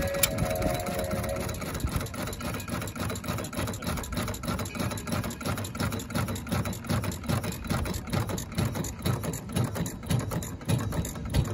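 A replica of Henry Ford's 1893 kitchen sink engine, a single-cylinder four-stroke gasoline engine, running steadily with its flywheel spinning, giving an even, regular beat of firing strokes.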